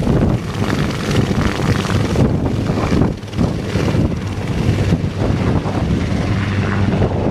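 UH-1Y Venom helicopter's four-blade main rotor and twin turboshaft engines running at high power as it lifts off and flies away low, with rotor wash buffeting the microphone. The sound shifts abruptly a few times.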